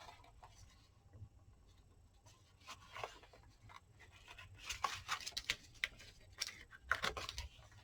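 Paper and card being handled and pressed into place by hand: scattered light rustles and taps, busier in the second half.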